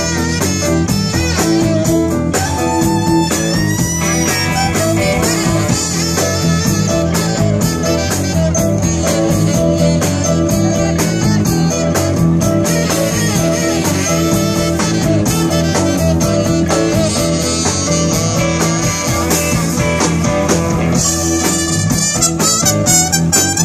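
A live blues band playing, with electric guitar, drums and horns.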